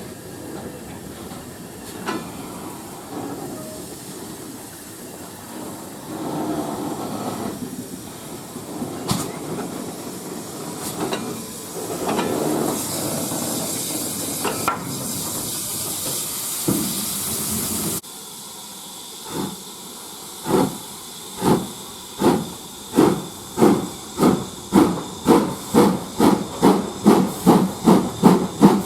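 Steam locomotive letting off a loud hiss of steam. After a sudden change, the exhaust chuffs of a steam locomotive pulling away start slowly and speed up steadily, reaching about two to three beats a second.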